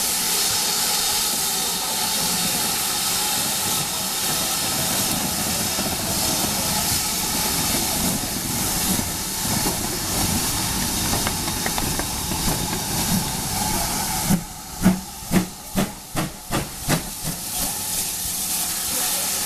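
Steam locomotive blowing off a steady hiss of steam, then about fourteen seconds in starting away with a run of about eight exhaust chuffs that come quicker and quicker.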